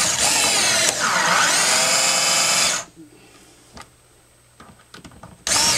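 Cordless screwdriver running as it drives a screw down through a bending mandrel into a building board. Its motor slows about a second in as the screw bites, picks up again, and stops after about three seconds. It starts again near the end.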